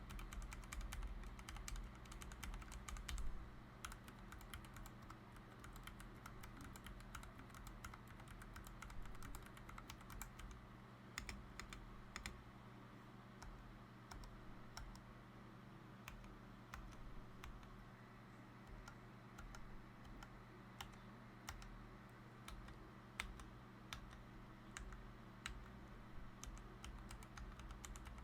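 Typing on a LOGA x Carnival mechanical keyboard with Gateron Brown tactile switches: a continual run of quiet key clicks, busiest in the first few seconds, over a faint steady hum.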